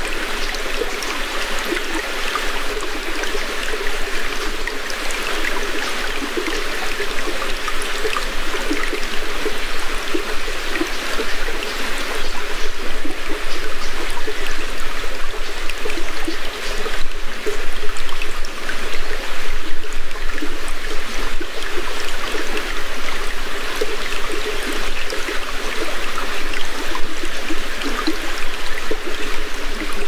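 Small stream running over stones, a close, steady trickle of water.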